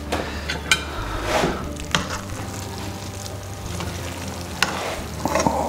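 Metal spoon stirring freshly cooked rice pilaf in a stainless steel pot: soft scraping and shuffling of the grains, with a few sharp clinks of the spoon against the pot.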